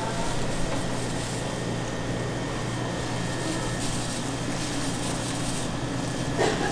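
Steady machine hum and hiss of a street food stall's background, with one short, louder pitched sound near the end.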